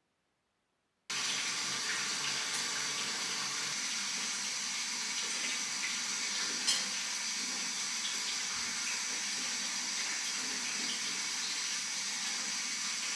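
Water running steadily from a tap into a bathtub, cutting in abruptly about a second in, with one small click partway through.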